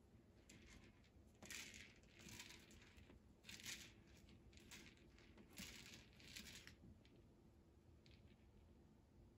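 Faint, irregular scratchy rustles as a kitten pounces on and bats small toys around on a woven doormat: claws and toys scraping and crinkling against the mat in short bursts.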